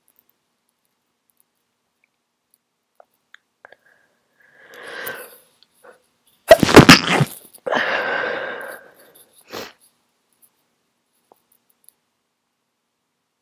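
A person with a head cold sneezing once, stifled: a breathy intake of breath a few seconds in, then a sharp, loud burst a little past the middle, followed by a longer noisy breath out and a short puff near the end.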